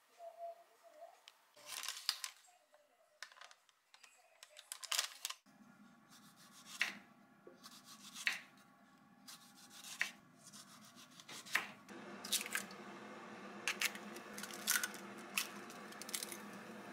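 A knife slicing through a tomato on a wooden cutting board, each cut ending in a sharp tap on the board, about every second and a half. A steady low hum runs underneath from about five seconds in. Near the end, eggs are cracked into a frying pan.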